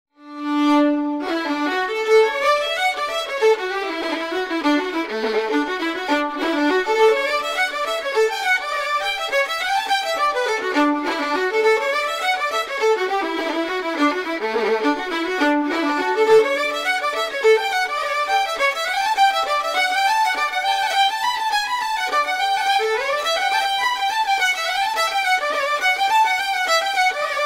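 Background music: a fast instrumental tune of quick running notes, led by a fiddle, opening on one held note.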